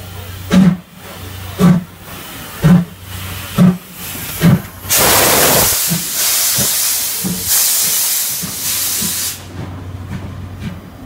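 C11 steam tank locomotive pulling out: five sharp exhaust chuffs about a second apart, coming slightly quicker each time, then a loud hiss of steam for about four seconds as the engine passes, followed by faint clicking of the wheels of the passing cars.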